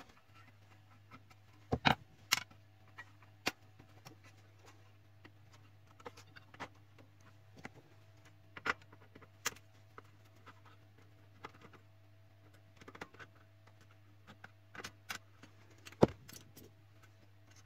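Scattered sharp clicks and knocks of plastic printer parts being handled as a cover section of an HP LaserJet 3055 MFP is lifted off to reach its gear assembly, with the loudest knocks about two seconds in and near the end.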